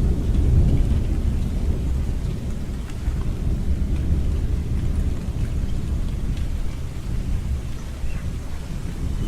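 Thunderstorm: a steady low rumble of thunder under continuous rain, with a few faint drips. The rumble is strongest at the start and eases a little after a couple of seconds.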